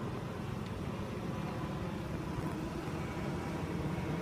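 Steady low rumble of road traffic at a level crossing, with no distinct single event.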